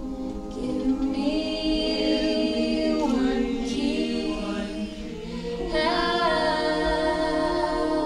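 Women's choir singing a cappella, holding long sustained chords in close harmony. A new phrase swells in about a second in and another just before six seconds.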